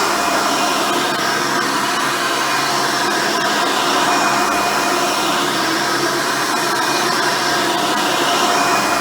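Hoover Elite upright vacuum cleaner running steadily, its original 7-amp motor and 7-blade fan giving a constant whine over the rush of air, with a single-row brush roll fitted.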